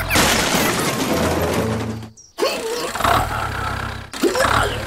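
A loud crashing, shattering noise as a toy tractor tips over onto a trailer; it lasts about two seconds and cuts off suddenly. After a brief gap, a steady low hum comes back with short gliding tones over it.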